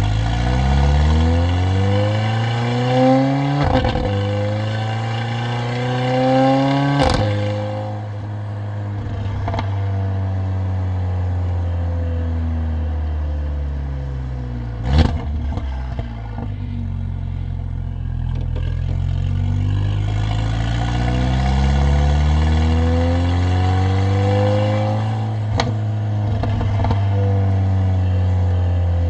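Mercedes-AMG CLA45's turbocharged four-cylinder engine and loud exhaust under acceleration, the pitch climbing through the gears with a sharp crack at each upshift. Midway the revs fall away with a loud pop, then the engine pulls up through the gears again.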